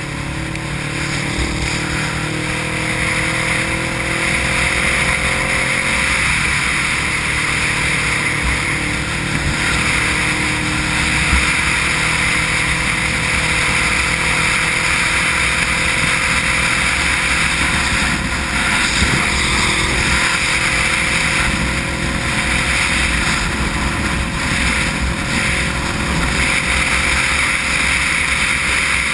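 Motorcycle cruising on a wet highway in heavy rain: a steady rush of wind and road spray on the bike-mounted camera's microphone over a low engine drone. The engine's hum shows most clearly in the first few seconds.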